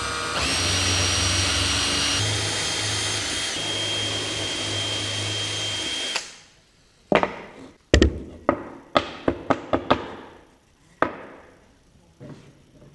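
Power drill with a Forstner bit boring out an existing hole, running steadily with a high whine that steps down in pitch about two seconds in, then stopping after about six seconds. A run of about a dozen sharp knocks and clicks follows.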